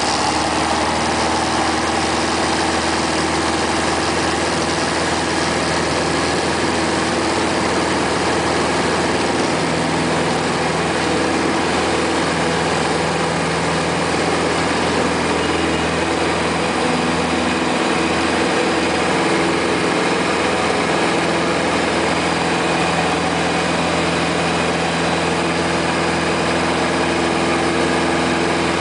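Robin DR-400's four-cylinder piston engine and propeller at full take-off power, heard inside the cabin: a steady drone through the take-off run and lift-off.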